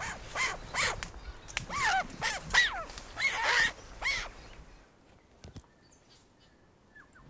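Animal cries: a series of about eight short, high whining calls, each rising and falling in pitch, in the first four seconds, then they stop.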